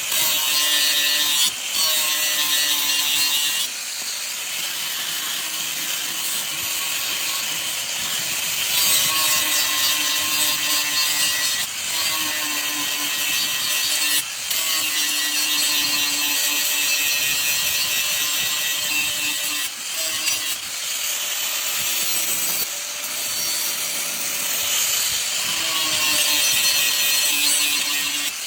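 Bone cleaver's steel blade being ground on a motor-driven grinder to put a new edge on it: a steady gritty hiss, with the machine's hum coming and going in passes of a few seconds as the blade is worked against the wheel.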